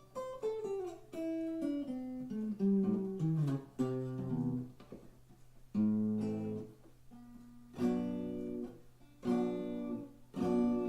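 Acoustic guitar: a line of single picked notes stepping down in pitch, then a few strummed chords about a second and a half apart. The player says the guitar is out of tune.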